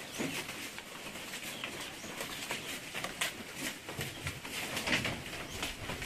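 Goats browsing leafy branches, an irregular crackle of rustling and tearing leaves with scattered clicks and taps.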